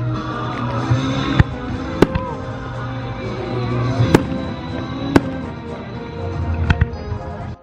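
Fireworks display: about five sharp shell bursts go off over a few seconds, with music playing underneath.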